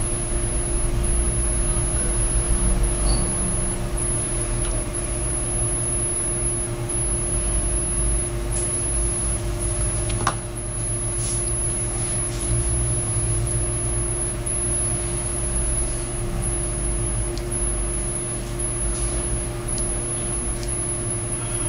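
Steady low machine hum with a constant tone above it, and a few faint light clicks from hands pressing a clear stamp onto EVA foam.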